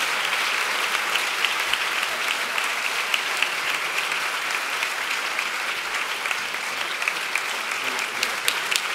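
A large audience applauding steadily, with some sharper individual claps standing out near the end.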